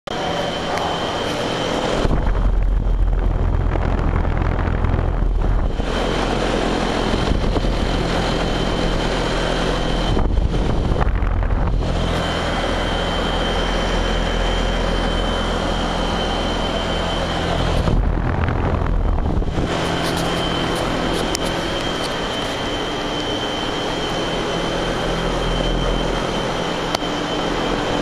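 Trane XB13 central air conditioner's outdoor condensing unit running, with its three-blade condenser fan turning: a steady whir with a constant high tone over a low hum. A few stretches of heavier low rumble come and go.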